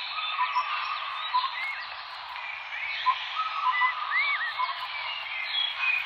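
A chorus of small birds chirping and whistling: many short calls that rise and fall, overlapping over a steady hiss.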